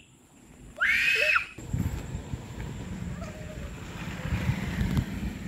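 A young child's high-pitched squeal, rising and then falling in pitch, about a second in. The sound then cuts abruptly to a low, uneven outdoor rumble.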